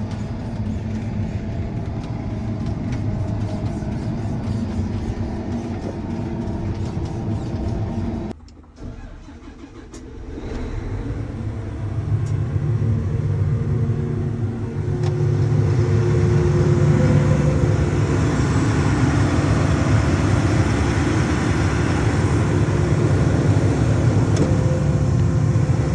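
Farm machinery engine running steadily. About eight seconds in the sound drops away sharply, then engine noise builds back up over several seconds and runs louder and steady to the end.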